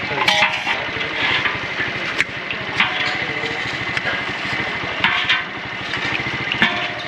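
A small engine running steadily with a fast, even beat, with a few short knocks over it.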